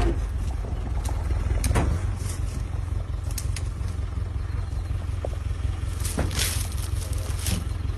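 Game drive vehicle's engine running in a low steady rumble, with a few brief rustles and knocks about two seconds in and again near the end.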